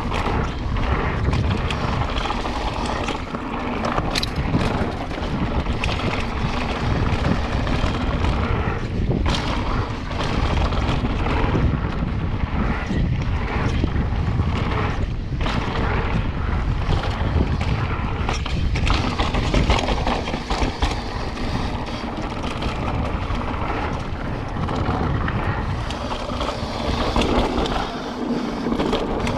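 Wind buffeting the microphone during a fast mountain-bike descent, with steady rolling noise and scattered knocks and rattles from the bike over rough ground.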